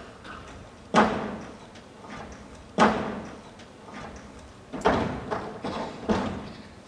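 Heavy thuds of dancers' bodies slamming against a wooden stage wall: five hits in about five seconds, each with a short echo, the first two loudest.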